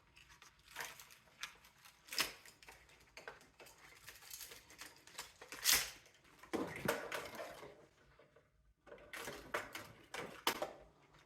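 Parts of a mini split air-conditioner unit being handled and pulled apart by hand: irregular clicks, knocks and clatter, with a longer scrape about seven seconds in.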